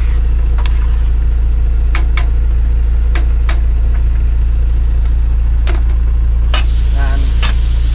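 A sailboat's inboard engine running steadily, heard inside the cabin as a continuous low drone. Over it come a few sharp metallic clinks of a spoon against a stainless saucepan and of pot lids on the galley stove.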